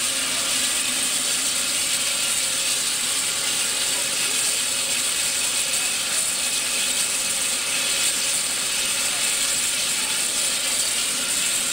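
Steam road locomotive 726 standing with steam up, its boiler letting off a steady, high-pitched hiss of steam.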